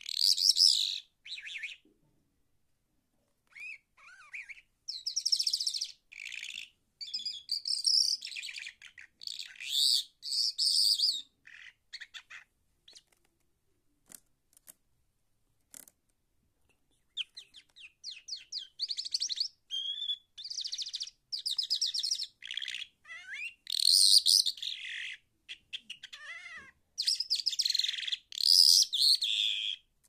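Caged lark singing: rapid, varied high-pitched phrases of chirps, trills and whistles, pausing for a few seconds midway before resuming.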